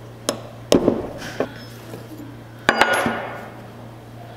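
Metal clinks and clanks of a combination wrench working the pressure sensor fitting on a power steering pump to loosen it, with two sharp louder clanks, about a second in and near three seconds in.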